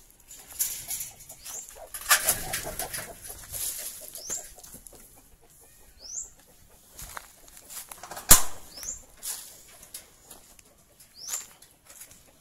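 Chickens in wire-mesh coops flapping their wings, with a noisy flurry about two seconds in. A short high rising chirp repeats every two to three seconds, and there is one sharp knock about eight seconds in.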